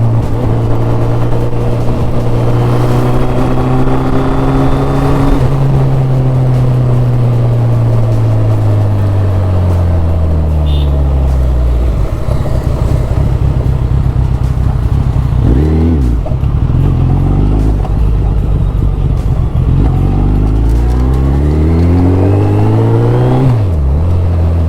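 2023 Suzuki Hayabusa's 1340 cc inline-four engine running under way: steady at first, then its pitch falls for several seconds as the bike slows, a quick change around the middle, then it rises again under acceleration before a gear change near the end.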